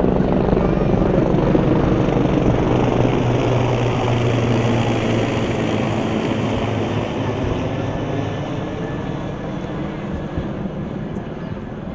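Aircraft passing: a steady engine drone with a low hum that slowly fades over the second half.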